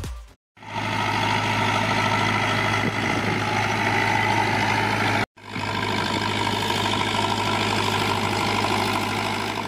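Zetor 7211 tractor's three-cylinder diesel engine running steadily, with a brief break about five seconds in where the shot changes.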